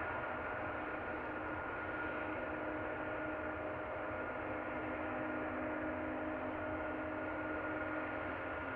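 Boeing 737-500's CFM56-3 turbofan engines running at taxi power: a steady jet whine of a few held tones over a rushing hiss.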